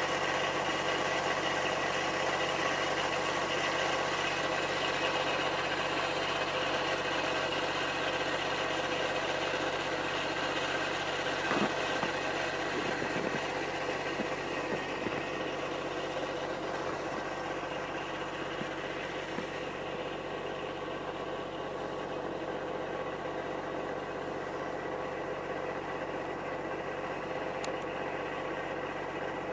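An engine idling steadily, a constant hum with several fixed tones, with a few faint knocks about halfway through.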